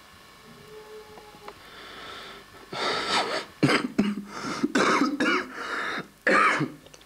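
A man coughing in a fit of about six or seven coughs one after another, starting a little under three seconds in and stopping shortly before the end.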